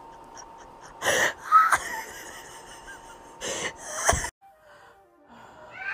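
Four loud, breathy gasp-like wheezes, then an abrupt cut and a short run of musical notes stepping downward.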